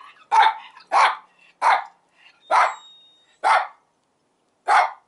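A dog barking: six sharp barks about a second apart, with a longer pause before the last one.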